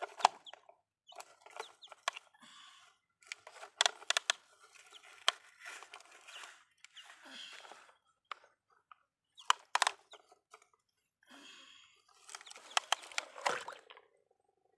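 Hands splashing and stirring in a shallow muddy puddle while plastic toy vehicles are handled, in irregular bursts with sharp clicks and knocks of plastic.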